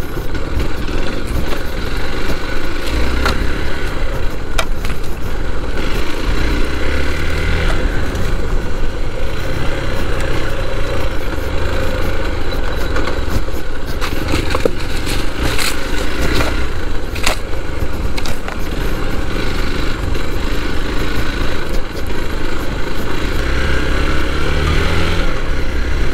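Hero Xpulse 200 4V's single-cylinder engine running under way, its note swelling and easing every few seconds, with a few sharp knocks.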